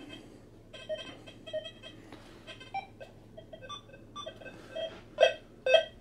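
XP Deus II metal detector beeping in its square audio mode as its coil sweeps over an iron buckle: softer, broken tones at first, then from about five seconds in loud short beeps about two a second, all on one pitch, its response to the iron target.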